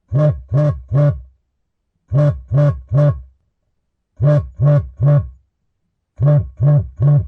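Mobile phone vibrating in a repeating pattern of three short buzzes, one group about every two seconds, four groups in all.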